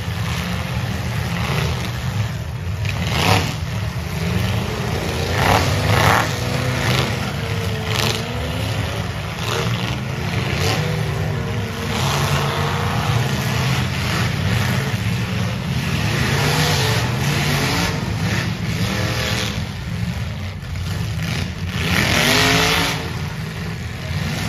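Demolition derby cars' engines running and revving together, with several sharp bangs of cars colliding.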